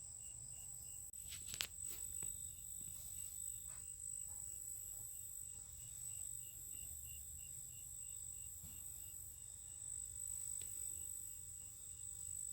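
Insects calling: a steady high-pitched buzz with a cricket chirping evenly at about three chirps a second. A single sharp click about a second and a half in.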